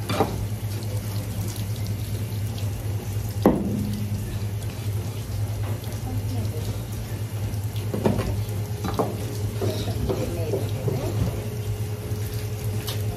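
Tap water running into a sink over a steady low hum, with a few sharp knocks and clatters, the loudest about three and a half seconds in.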